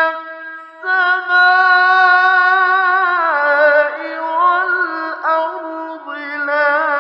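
Male Quran reciter chanting in tajweed style: a long held note from about a second in, then a step down into ornamented melodic turns, in maqam Nahawand.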